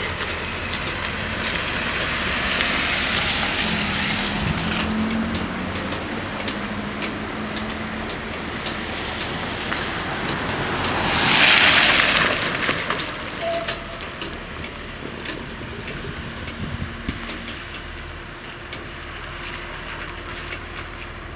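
Road vehicles running over a level crossing with a steady noise of tyres and engine; one car passes close about eleven seconds in, swelling and fading.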